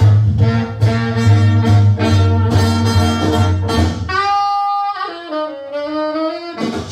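Recorded music played through a Reisong A10 valve amplifier. A full band with steady bass and beat plays for about four seconds, then drops away to a lone melody line holding long, gliding notes, and the band comes back in at the end.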